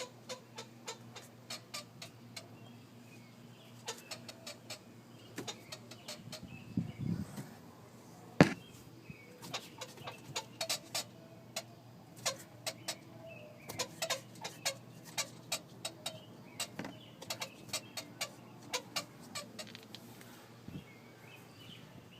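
Infiniti G35 making a squeak noise: many short, irregular chirping squeaks, often in quick runs, over a faint steady low hum. One louder sharp click about eight seconds in.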